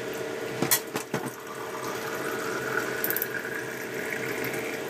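Steady rush of running water, with a few sharp clicks and a knock about a second in.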